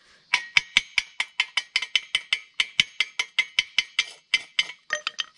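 Chipping hammer striking a fresh arc-weld bead on square steel tubing to knock off the slag: a quick, even run of sharp metallic taps, about five a second, with a brief pause and a few last taps near the end.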